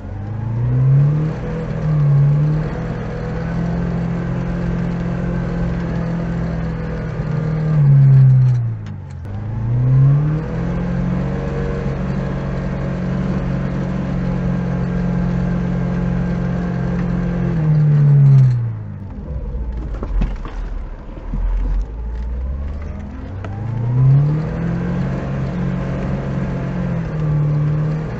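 Lada Niva's engine revving hard in the mud, heard from inside the cabin. The pitch climbs, holds high, then drops away several times, and the engine goes quieter for a few seconds about two-thirds of the way through before climbing again.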